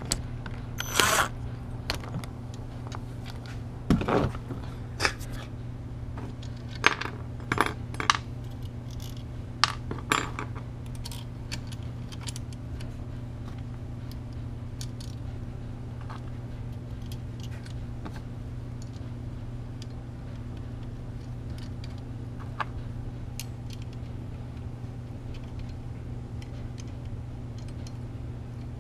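Small metal hardware (nuts, washers and bolts) clinking and scraping on a workbench and against winch solenoid terminals as the solenoids are assembled on their bracket: about a dozen sharp clicks in the first ten seconds, then only one or two. A steady low hum runs underneath.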